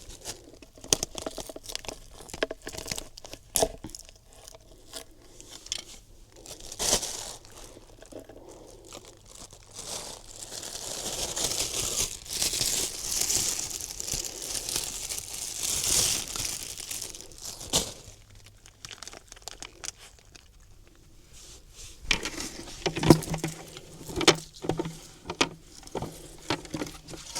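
Thin plastic dog-waste bags crinkling and rustling as chopped mackerel is packed into them and they are tied shut, with scattered small clicks and taps and a longer stretch of continuous rustling midway.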